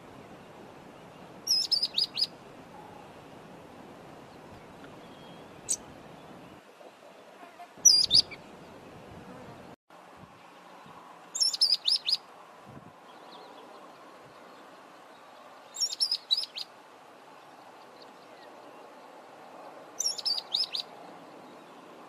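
Mousebird calling: five short bursts of rapid, high-pitched chirps, about one every four seconds, over a steady background hiss.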